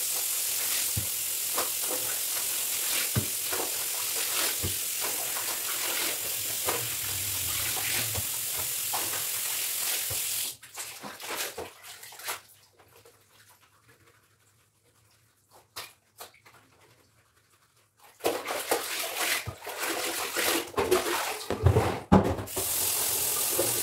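Clothes being hand-washed in a basin: wet fabric rubbed and scrubbed over a steady hiss. About halfway through it goes nearly silent for several seconds, then scrubbing and splashing of water resume, louder and more uneven, before the steady hiss returns near the end.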